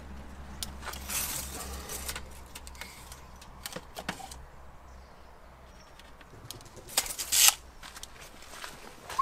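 Steel tape measure being worked along a wooden board: small clicks and scratchy rattles, with the loudest rattle about seven seconds in.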